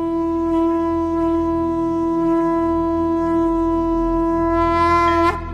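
A conch shell (shankha) blown in one long, steady note that swells and brightens just before it cuts off about five seconds in, over a faint low drone.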